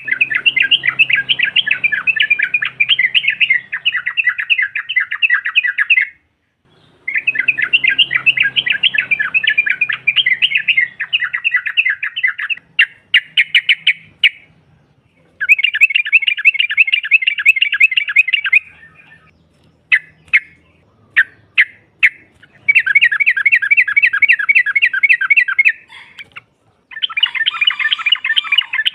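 Yellow-vented bulbul (trucukan), a female, calling in rapid chattering bouts of several seconds each, separated by short pauses and a few single sharp notes.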